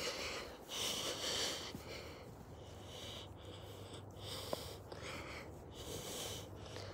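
A dog sniffing and snorting with its nose pushed into snow: a string of short, hissing breaths, about one a second.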